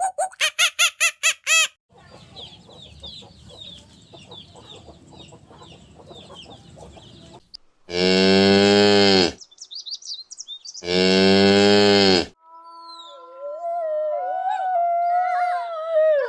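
Two loud, long cow moos, each about a second and a half, a short gap apart. Before them comes a quick run of short high calls and then a stretch of faint chirping over a hiss; after them, a wavering howl begins.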